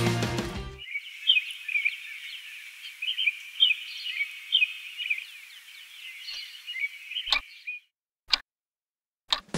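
Music fades out, then a chorus of small birds chirps for several seconds. Near the end come three sharp ticks about a second apart, from a wall clock.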